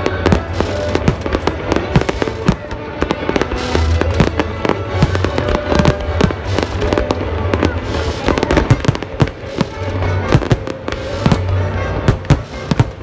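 Fireworks display: a rapid, continuous series of shell bursts and bangs over loud accompanying music with a pulsing bass.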